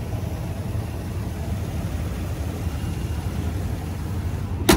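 The 6.6-litre naturally aspirated V8 of a GMC Savana 2500 van idling steadily, a low even rumble. A brief sharp click near the end.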